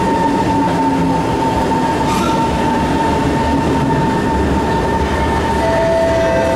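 SMRT C151 metro train pulling into an underground platform and slowing to a stop, with a low rumble and a steady whine. A second, lower whine joins near the end.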